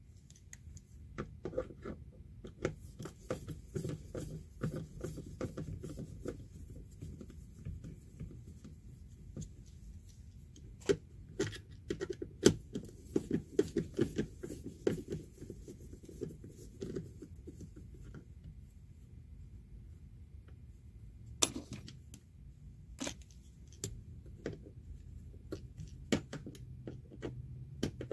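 Workbench handling noise of a Sanicompact macerator toilet being dismantled: a long run of small clicks and scrapes from a screwdriver, hose clamps, rubber hoses and the plastic housing, with a few louder knocks, the loudest about halfway through.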